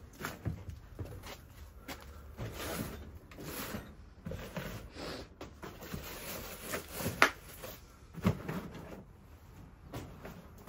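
Cardboard boxes and metal shelving being shifted and handled: scattered knocks, scrapes and rustles, with a sharp knock about seven seconds in.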